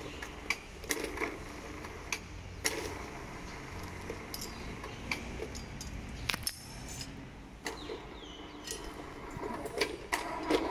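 Irregular metallic clinks and knocks of a hoist chain and lifting tongs against a steel extrusion die. About ten seconds in, an electric chain hoist starts up with a steady hum as it begins to lift the die.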